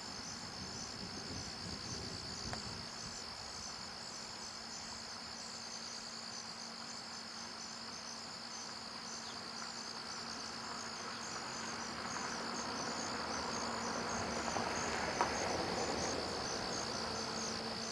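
Insects chirping in a steady chorus: a constant high trill with quick pulsing chirps above it.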